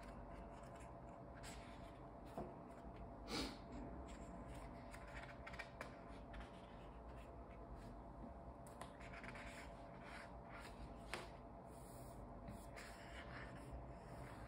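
Faint rustling and soft taps of paper sketchbook pages being turned and smoothed by hand over a low steady hum, with a louder page flick about three seconds in.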